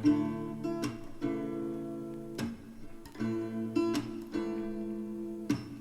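Background music: acoustic guitar strumming slow chords, each left to ring, with no singing in this stretch.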